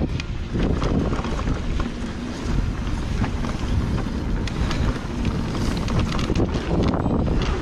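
Wind buffeting the microphone during a fast downhill mountain-bike ride, over the steady noise of tyres rolling on a dirt trail. Through it the Santa Cruz Megatower full-suspension bike rattles and clatters in many small, irregular clicks of chain and frame over rough ground.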